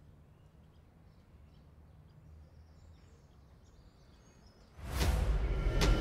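Faint low hum with a few faint chirps. About five seconds in, a sudden loud rushing whoosh cuts in, with a sharp click just before the music starts.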